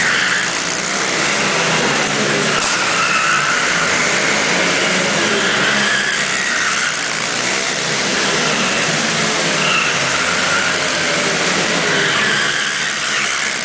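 Small minibike engines revving up and down as the bikes race laps around a course inside a large warehouse, the pitch rising and falling every second or two.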